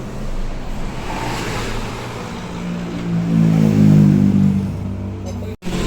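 A car's engine, growing louder to a peak about four seconds in and then easing off as it passes, cut off abruptly near the end.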